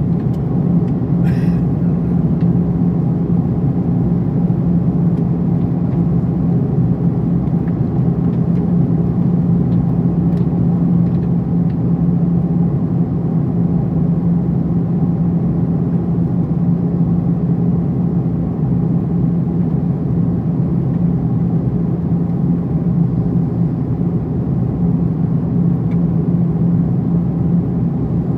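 Steady cabin noise inside an Airbus A340-300 in flight: the drone of its four CFM56 turbofan engines and the rush of air past the fuselage, with a strong, even low hum.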